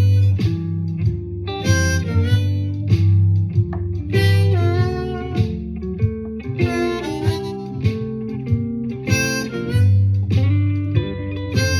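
Blues harmonica (a C harp in second position, key of G) playing short licks over a guitar shuffle backing track, a phrase about every two and a half seconds. The licks are built to land on the major third of each chord.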